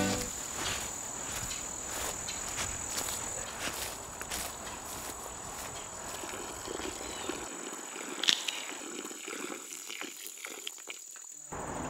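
Forest ambience: a thin, steady high-pitched insect drone, louder in the first few seconds, with scattered rustles and footsteps in the undergrowth and one sharper snap about eight seconds in.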